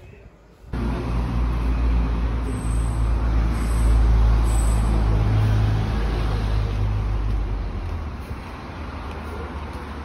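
A motor vehicle's engine running close by, a low rumble that is loudest about four seconds in and then fades somewhat.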